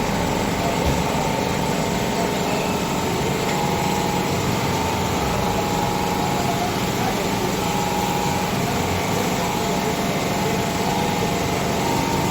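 A small engine running steadily under a constant hiss.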